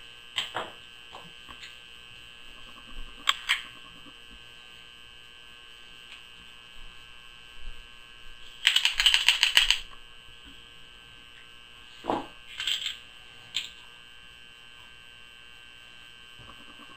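Cartridge reloading at a single-stage press, with scattered metallic clicks and clinks of brass and press parts. About nine seconds in comes a dense rattle lasting about a second, as Vihtavuori N135 stick powder is poured through a plastic funnel into the case. A few knocks follow as the press is worked again.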